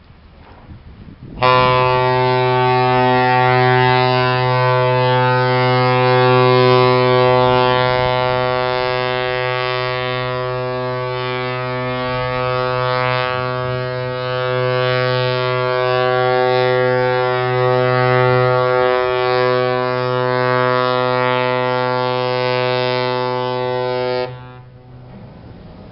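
Large cargo ship's horn sounding one long, loud, steady blast of about twenty-three seconds on a single low note, as the ship is run at speed onto the beach of a ship-breaking yard. It starts a second or so in and cuts off abruptly near the end, as the bow reaches the shore.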